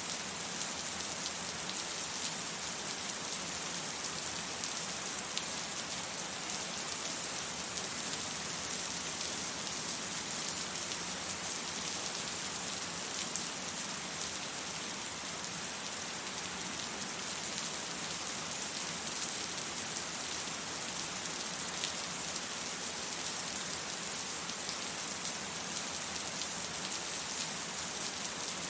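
Steady rain falling, an even hiss with the odd sharper drop tick; no thunder is heard.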